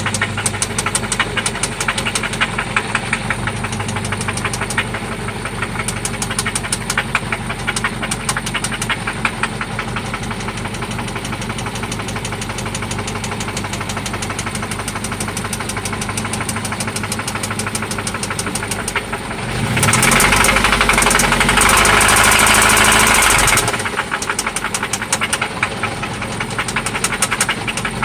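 1995 Toyota Celica ST four-cylinder engine idling with a rapid, steady knock that remains after an oil change and new spark plugs. It is revved for about four seconds roughly two-thirds of the way in, then drops back to idle with the knock still there.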